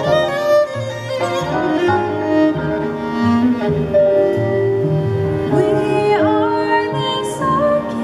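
Violin and cello playing a slow passage of sustained, overlapping notes, with one note sliding in pitch about six seconds in.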